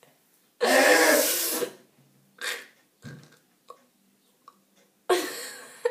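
Breathy vocal outbursts from a girl with no words: a loud one lasting about a second shortly after the start, a short one about halfway through, and another near the end.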